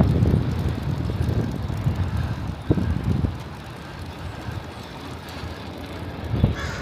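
Wind buffeting the microphone and low rumble while riding a bicycle, fading after the first few seconds, with two short knocks near the middle.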